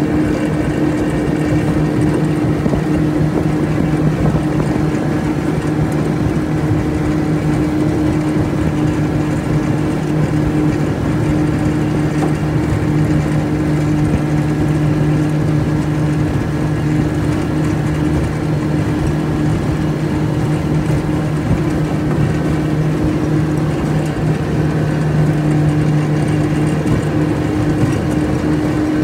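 25 hp Johnson outboard motor running at a steady cruising speed with an unchanging pitch, pushing a jon boat across choppy water, over a steady hiss of wind and water.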